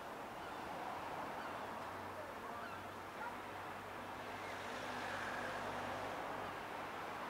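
Seafront ambience: faint gull calls now and then over a low, steady hum of road traffic.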